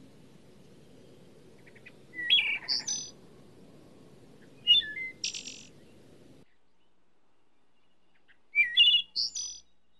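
A bird calling in three short bursts of quick high chirps, each a sliding note followed by a higher buzzy one.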